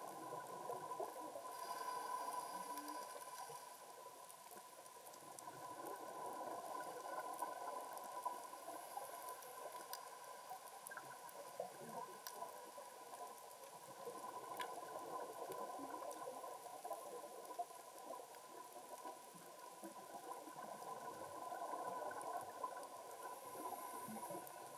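Faint underwater ambience: a continuous crackle of small clicks with a few sharper ticks, over a steady hum, swelling and fading gently every few seconds.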